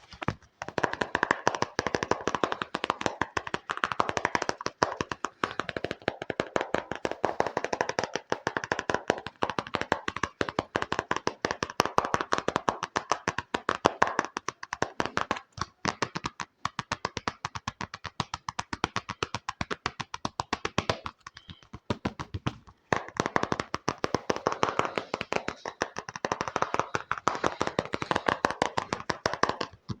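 Fast ASMR tapping on an object, a dense run of sharp taps several a second, thinning out briefly about two-thirds of the way through before picking up again.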